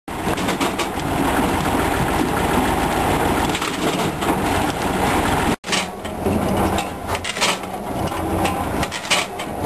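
PTO-driven Weimer HN200 firewood processor running, a dense mechanical clatter with frequent knocks and wood-crunching noises. The sound drops out for an instant a little past halfway.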